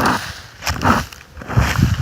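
Rake dragged across a lawn in repeated scraping strokes, a little under one a second.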